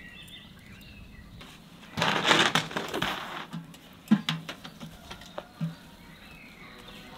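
Faint bird chirps, then about two seconds in a loud rough rustling and scraping that lasts about a second and a half, followed by a few sharp knocks. These are handling sounds as a mud mix is worked by hand in a metal basin and tin buckets and cans are handled.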